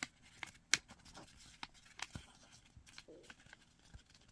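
Origami paper being folded and creased by hand: scattered faint crisp crackles and taps, the sharpest a little under a second in.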